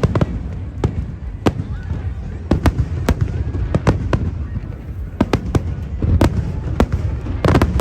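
Fireworks display: a rapid, irregular series of sharp bangs, several a second, over a continuous low rumble.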